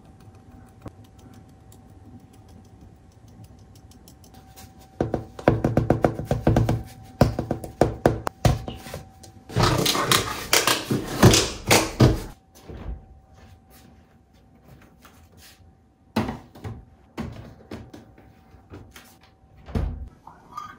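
Plastic food-container lids being pressed and snapped onto the boxes: a run of sharp clicks and crackles, densest about halfway through. A few knocks follow, and a door is pushed shut with a thud near the end.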